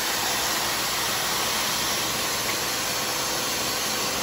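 Air-cushion bubble wrap machine running, blowing air into a continuous sheet of bubble film as it feeds off the roll: a steady hiss of blown air with a faint steady hum.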